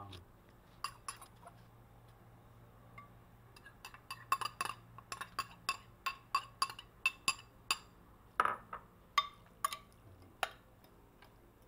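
Metal spoon and fork clinking against ceramic bowls as minced garlic is scraped into raw milkfish for kilawin and the mixture is stirred. A few scattered clinks, then a quick run of about three or four a second in the middle, with one louder clink near the end of that run.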